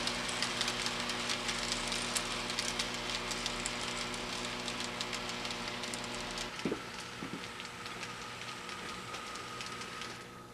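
Model train rolling along the layout track: rapid light clicking of wheels over rail joints over a steady hum. The clicking thins out and the sound fades after about six seconds as the train moves away.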